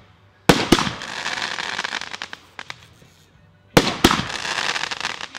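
Private-show aerial fireworks: two shell bursts, each a pair of sharp bangs followed by a couple of seconds of crackling, the first about half a second in and the second near four seconds in.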